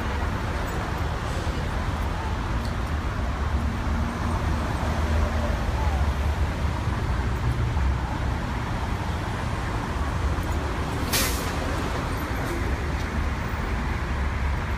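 Steady city traffic rumble, with a brief sharp hiss about eleven seconds in.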